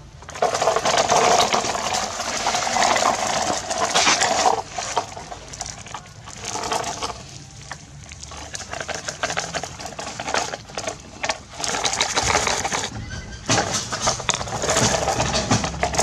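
Sand and small pebbles sliding and pouring out of a plastic toy dump truck's tipping bed, a gritty rattling hiss made of many small clicks. It comes in two louder spells, near the start and again near the end, with scattered clicks in between.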